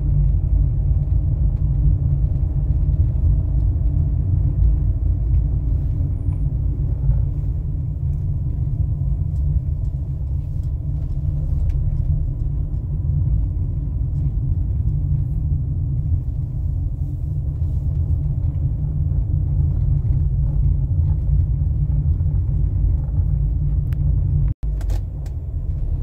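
Steady low rumble of a car driving, heard from inside the cabin. The sound breaks off for an instant near the end.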